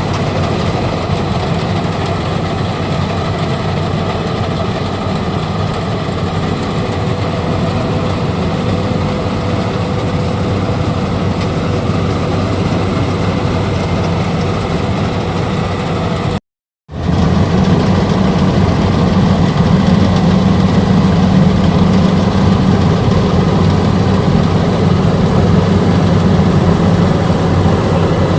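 Maxxi Bimo 110 Plus combine harvester's engine running steadily under harvesting load. The sound breaks off for about half a second just past the middle and resumes slightly louder.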